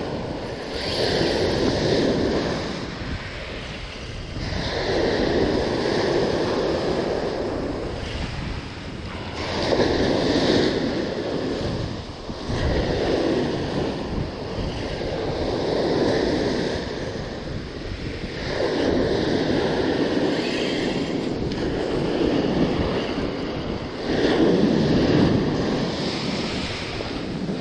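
Sea surf breaking and washing up a beach, rising and falling in surges every few seconds, with wind on the microphone.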